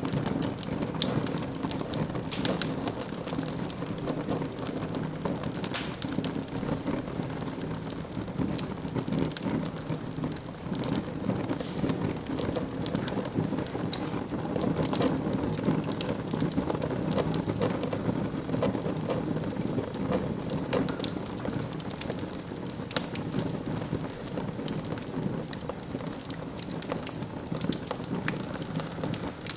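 Wood fire burning in a fireplace: a steady low rumble of flames with constant small crackles and a few louder pops.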